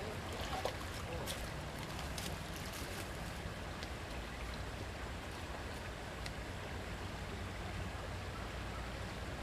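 Steady rush of running creek water, with a low rumble underneath and a few faint clicks.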